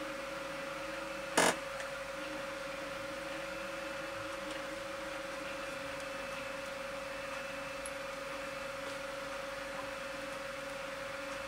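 Steady electrical hum with a constant mid-pitched tone, and a single short tap about one and a half seconds in.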